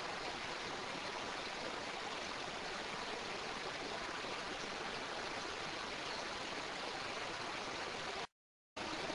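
Steady, even hiss of an amplified audio recording's background noise, with no distinct event in it. It cuts to dead silence for about half a second just after eight seconds in.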